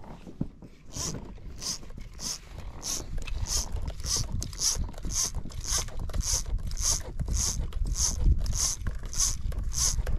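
Fly line being stripped in by hand through the rod's guides in short, regular pulls: a quick hiss of line roughly every half second, starting about a second in. A low rumble runs underneath.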